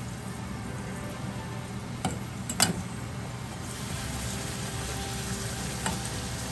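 Luchi deep-frying in hot oil: a steady sizzle, with two short clicks a little after two seconds in.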